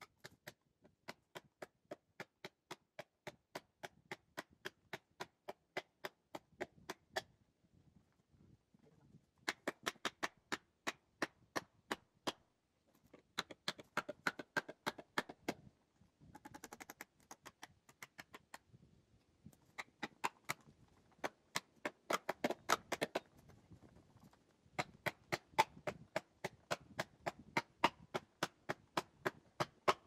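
Rapid hammer blows on a felling wedge driven into the cut of a large tree, about three sharp strikes a second in runs of several seconds with short pauses between.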